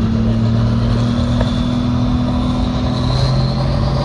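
A tractor engine running at a steady speed. About three seconds in, its pitch steps up slightly.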